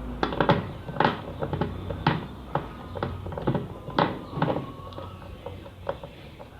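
Clicks and knocks, about two a second and growing fainter near the end, as the screws holding a new motor inside a Numatic drum vacuum cleaner's housing are tightened by hand.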